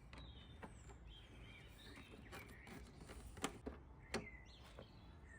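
Faint birdsong, with short chirps and twittering calls, and a few sharp clicks; the two loudest clicks come about three and a half and four seconds in.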